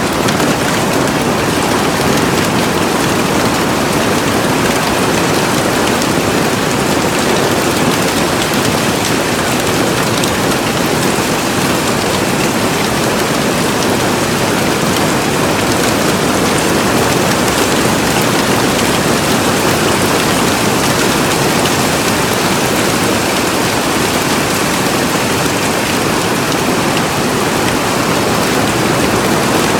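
Hailstorm: a dense, steady hammering of hailstones on a greenhouse, countless small impacts merging into one loud roar with no letup.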